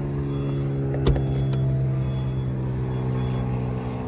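Mercedes-Benz GLS 450 tailgate opening: a sharp latch click about a second in, then the gate rising, over a steady low mechanical hum.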